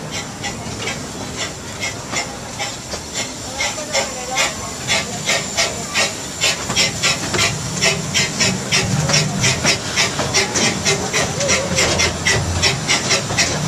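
Amusement-park steam locomotive chuffing in a steady rhythm, about four exhaust beats a second, heard from a passenger car behind it. About halfway in the chuffs get louder and more even, over a rising low rumble of the train on the track.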